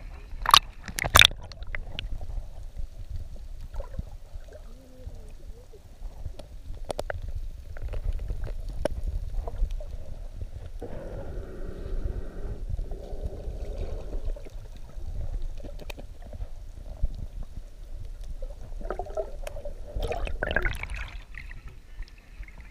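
Muffled low gurgling and rumbling of water heard with the microphone underwater, with two sharp splashes about a second in as the camera goes under the surface. Muffled mid-pitched sounds come through the water twice, around the middle and near the end.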